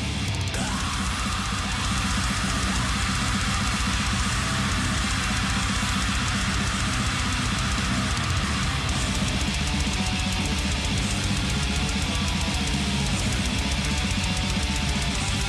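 Extreme metal song playing: distorted electric guitars over fast, dense drumming at a steady loud level.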